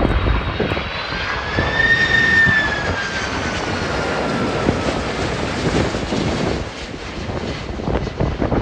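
Twin turbofan engines of a KC-767 tanker flying past, a jet whine that rises in pitch, peaks about two seconds in and then slowly falls as the aircraft goes by, over a steady engine rumble. Strong wind buffets the microphone.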